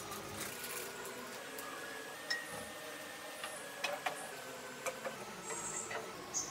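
Spatula stirring a pan of curry on the stove: a few light clinks and taps against the pan, some with a short ring, over a steady faint hiss.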